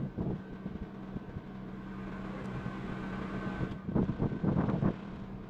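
A steady low mechanical hum, like a motor or fan running, with louder irregular sounds about four seconds in.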